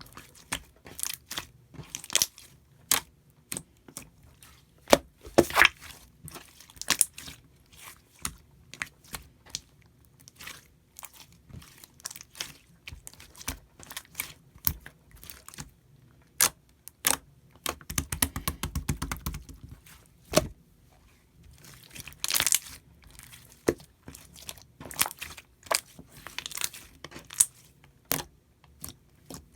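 Slime being squeezed, poked and folded by hand, giving a string of sharp crackling clicks and pops, with a fast run of clicks about two-thirds of the way through.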